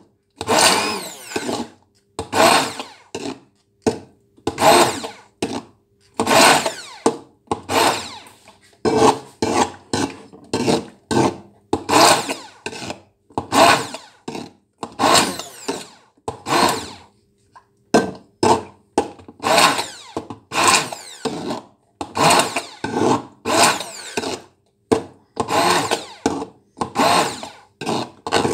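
Handheld stainless-steel immersion (stick) blender blending food in a bowl, switched on in short pulses about once a second, with its motor pitch sliding as each pulse spins up and down. There is a brief pause about two-thirds through.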